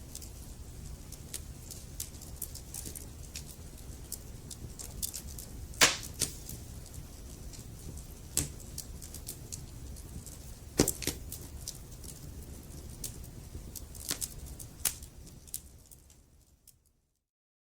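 Wood fire crackling in a fireplace: a low, steady rumble of burning logs under frequent sharp pops and snaps, two of them loudest, about six and eleven seconds in. Near the end the sound fades out to silence.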